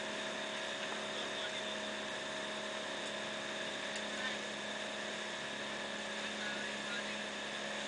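Outrigger boat's engine running steadily under way, a constant-pitched drone that holds the same level throughout.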